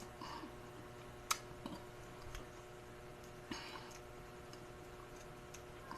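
Quiet eating of okra: a few soft, isolated clicks and two short mouth-noise puffs over a faint room hum, with no speech.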